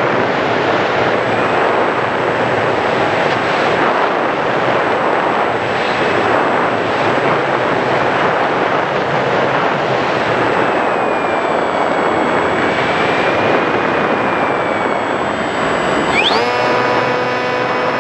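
Airflow rushing over the onboard camera of a Sky Surfer RC glider in flight with its electric motor throttled back. About sixteen seconds in the motor spools up sharply to a steady high whine.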